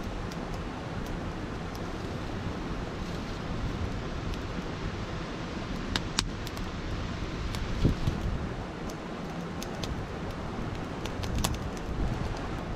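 Small stick campfire crackling, with a few sharp pops scattered over a steady rushing background noise.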